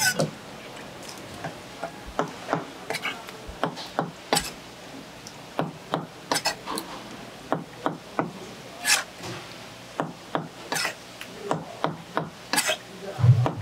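Chef's knife slicing sea squirt flesh on a plastic cutting board: irregular sharp knocks of the blade striking the board, about two a second.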